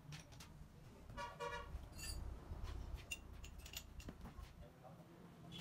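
Faint metal clicks and clinks of hand work on a crankshaft grinding machine, with a short horn toot about a second in and a low rumble through the middle.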